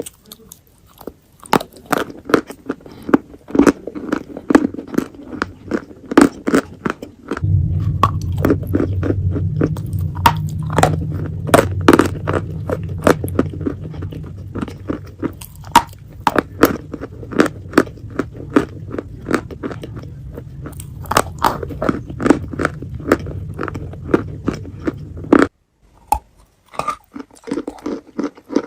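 Wet chalk with clay paste being bitten and chewed: many sharp, irregular crunches in quick succession. A steady low hum comes in about a quarter of the way through and cuts off suddenly near the end.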